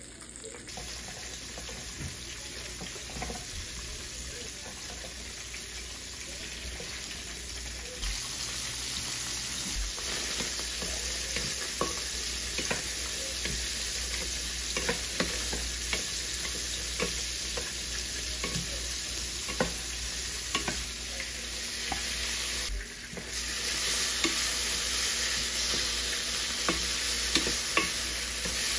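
Food sizzling in a frying pan: a floured pork chop frying in hot oil, then sliced onions frying in a stainless steel skillet. The onions are stirred with a wooden spoon that knocks and scrapes against the pan in scattered clicks.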